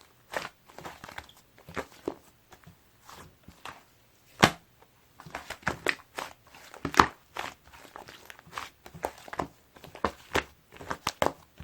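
Thick, sticky clay-type slime being pressed and stretched by hand, giving irregular sticky clicks and pops. The loudest come about four and a half and seven seconds in.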